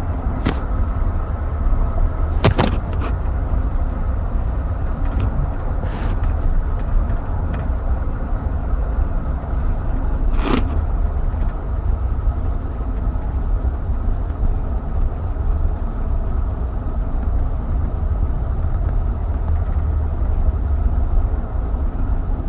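Steady low road and engine rumble inside a minivan's cabin while driving, with a few sharp clicks in the first half.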